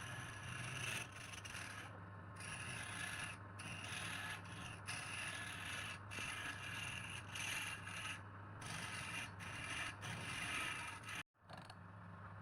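Wood lathe running with a steady motor hum while a turning tool scrapes the spinning wood, the cutting noise lifting off briefly every second or two. The sound cuts out completely for a moment near the end.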